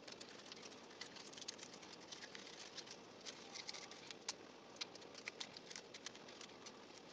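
Foil-backed gum wrapper crinkling faintly as fingers fold and crease it: an irregular scatter of small crackles and ticks.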